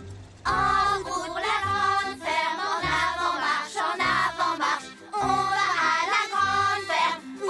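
A group of children singing a song together in chorus over a light instrumental accompaniment, coming in about half a second in.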